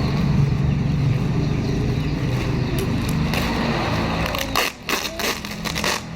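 A steady low rumble, then about a second and a half of sharp crackling and crinkling near the end, like packaging being handled and torn open.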